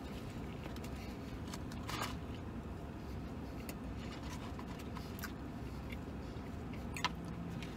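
A man chewing a sandwich, with a few short clicks and rustles from handling the sandwich and its cardboard box, over a steady low hum inside a vehicle cab.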